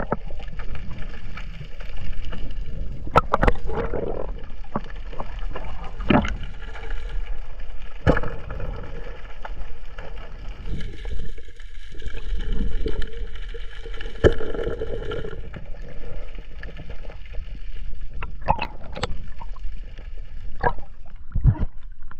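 Underwater sound picked up by a diver's camera: muffled water rushing and gurgling, with scattered sharp clicks and knocks at irregular intervals.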